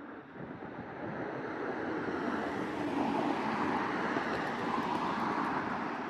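Engine noise of something passing by, a rushing sound that swells over the first couple of seconds, holds at its loudest, then eases slightly near the end.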